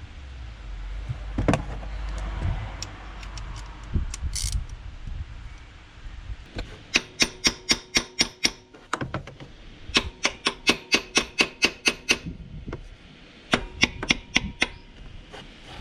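Three bursts of rapid hammer blows on metal, about five a second, with a slight metallic ring: tapping to break loose a stuck water pump on a BMW M43 engine. Before them, a few seconds of low knocking and handling noise from working on the engine.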